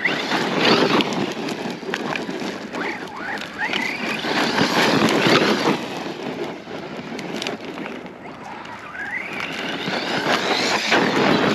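Arrma Outcast 4S RC stunt truck driving on a gravel dirt trail. Its brushless electric motor gives rising whines several times as the throttle is opened, over a steady rushing crunch of tyres on loose dirt.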